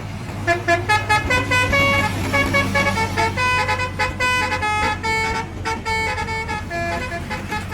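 Bus 'telolet' musical horn, Basuri type, playing a quick melody of short stepped notes that jump up and down in pitch. A steady low hum runs underneath.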